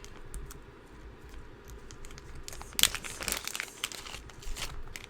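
Plastic packaging crinkling and tearing as the final jewelry item is unwrapped, with the loudest rustle about three seconds in and a smaller flurry near the end.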